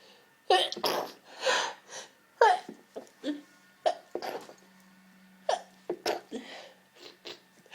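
A woman sneezing over and over in a fit, several sharp sneezes in quick succession with short breaths between, set off by ground pepper dust.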